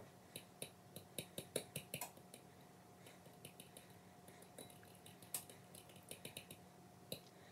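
Metal fork beating egg yolks in a ceramic bowl: faint quick clicks of the fork against the bowl, coming in runs.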